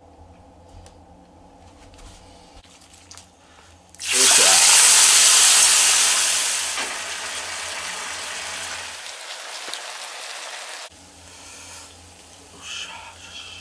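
Food sizzling loudly as it is tipped from a frying pan into a hot pan on a portable gas burner: the sizzle starts suddenly about four seconds in, then settles to a steadier, quieter sizzle.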